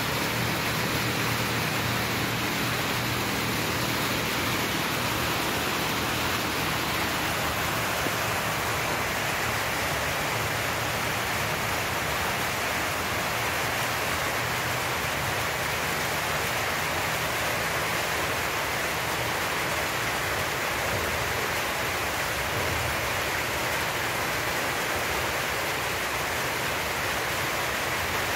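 Steady rushing noise with no breaks or distinct events, with a faint low hum underneath.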